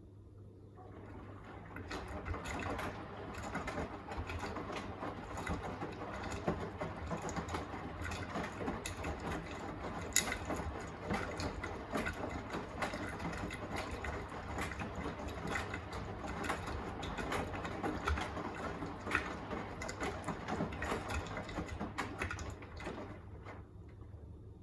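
Beko WTK104121A washing machine's drum turning during the wash, the wet load tumbling with many small clicks and swishes, over a steady low hum. The tumble starts about a second in and stops near the end.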